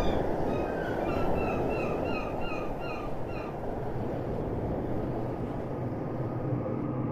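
Surf washing steadily while a gull calls in a rapid series of about a dozen short cries, roughly three a second, that stop about three and a half seconds in. Near the end a low steady hum comes in under the surf.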